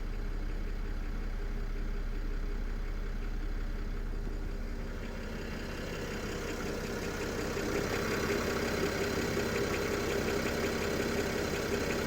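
BMW N53B30 straight-six idling on a cold start with a clatter that seems to come from around the oil pan or exhaust manifold; the owner has already ruled out the oil pump and the rod bearings. About halfway through the sound grows louder and brighter.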